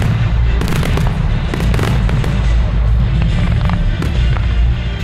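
Firework display: repeated shell bursts and crackles over loud music with a heavy bass.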